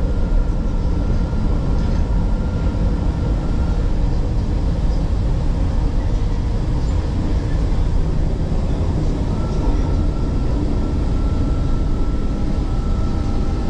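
MRT-3 train car running along elevated track, heard from inside the carriage as a steady, loud rumble. A thin high whine rides over it for the first few seconds and comes back from about nine seconds in.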